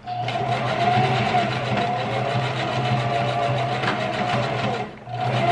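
Electric sewing machine running fast and steadily, stitching curly hair wefts onto a wig. It stops briefly about five seconds in, then starts up again near the end.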